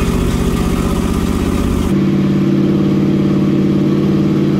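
1972 Chevrolet Nova's engine running steadily. The engine sound changes abruptly about two seconds in to a different, steadier note.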